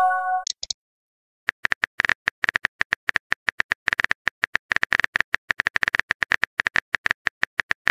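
Simulated phone-keyboard typing clicks from a texting-story app, several quick taps a second as a message is typed out. At the very start, a short chime tone sounds as a message bubble pops in.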